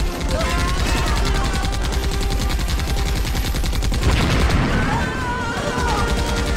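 Rapid automatic machine-gun fire, with a loud explosion bursting in about four seconds in.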